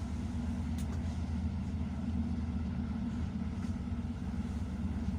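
Steady low rumble of a moving train, heard from on board.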